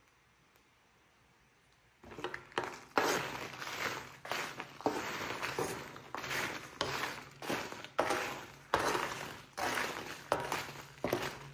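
Dried red chiles being stirred and scraped with a wooden spatula as they toast on a comal: crisp, crackly rustling swishes of the dry pods over the hot surface, about one and a half strokes a second, starting about two seconds in.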